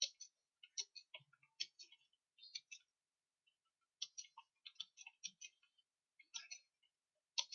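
Computer keyboard keys being typed in quick runs of clicks, with a pause of about a second near the middle.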